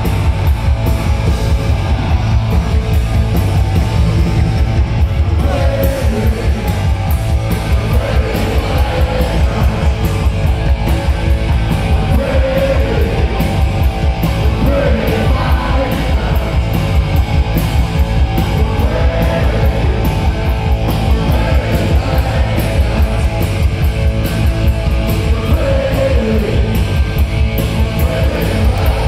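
Punk rock band playing live at full volume: distorted electric guitars, bass and fast drums, with a singer shouting the vocal line, heard from within the crowd.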